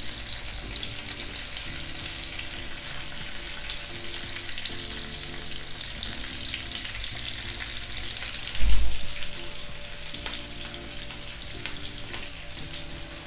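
Two masala-coated whole fish shallow-frying in coconut oil, sizzling steadily with small spits and crackles as freshly added curry leaves fry in the hot oil. A single dull thump about two-thirds of the way through.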